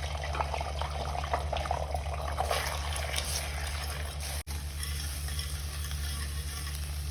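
Beaten eggs frying in hot oil in a kadhai, sizzling while a spatula stirs and scrapes them, with many small clicks and a steady low hum underneath; the sound drops out briefly about four and a half seconds in.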